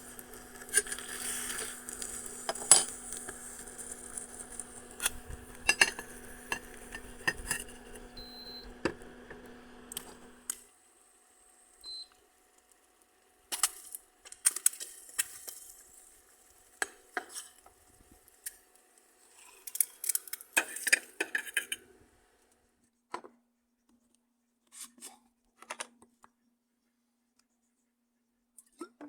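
Metal utensils clinking and scraping against a stainless steel pan, in scattered sharp knocks and short scraping runs. A steady hum runs under them for the first ten seconds and cuts off suddenly.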